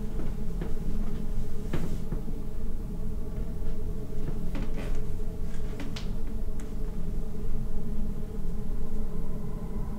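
A steady low rumble with a few sharp, irregular wooden knocks from footsteps and hands on a wooden staircase and banister.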